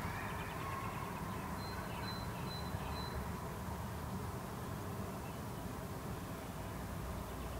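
Steady low hum of distant road traffic in a quiet residential area, with a bird giving a few short high chirps between about one and a half and three seconds in.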